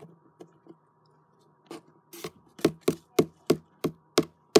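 Knocking on a cardboard box, heard from inside it: a few faint taps, then from about halfway through a regular run of sharp knocks, about three a second, each with a short hollow ring of the box.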